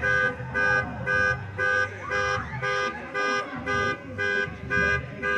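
Electronic warning beeper on a school bus beeping steadily, about two short beeps a second, over a low rumble.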